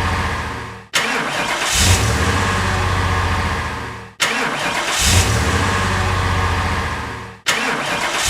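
Car engine starting sound effect played in a loop. Three times it cuts off abruptly and begins again, about every three seconds, each time with a short hiss and then the engine running and slowly fading.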